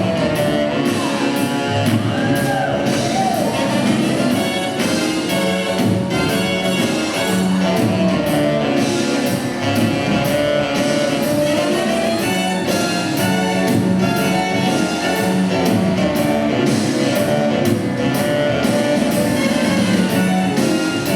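Rumba music playing steadily, with instruments and some singing.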